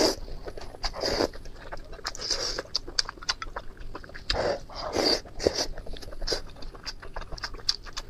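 A person eating saucy meat from chopsticks: repeated short slurps with wet chewing and mouth clicks in between.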